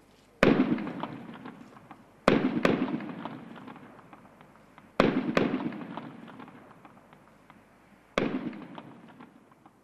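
Gunshots: about five or six sharp single shots a second or more apart, each followed by a long rolling echo that fades over a couple of seconds.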